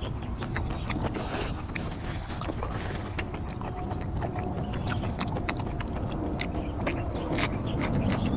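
Close-up mouth sounds of a person eating: irregular wet chewing and lip-smacking clicks. A steady low rumble runs underneath.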